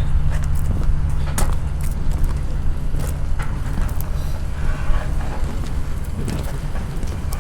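An engine running steadily at idle, a low even hum, with scattered light clicks and knocks over it.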